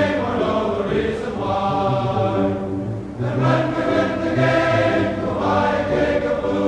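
Music: a choir singing a slow song in long held chords, in about three phrases with short breaks between.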